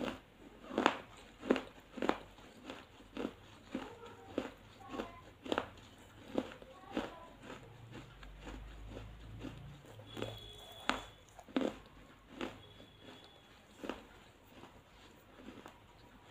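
A person chewing food with the mouth close to the microphone: short, sharp, irregular chewing clicks and smacks, roughly one or two a second.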